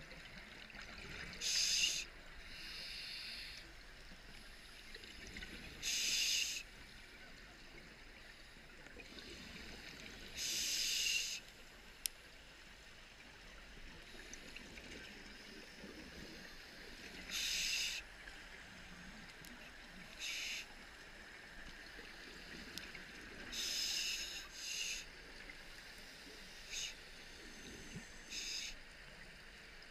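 Scuba diver breathing through a regulator underwater: short rushes of bubbling hiss every few seconds as exhaled air leaves the regulator, with fainter hiss between them from the inhalations, over a low steady underwater hum.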